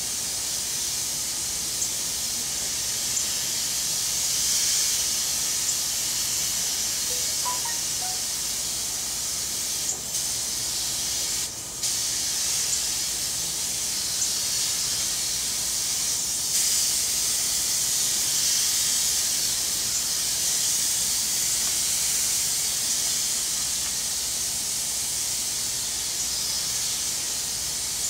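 Compressed-air paint spray gun hissing steadily as it sprays paint onto a pickup cab, with a few brief breaks in the spray.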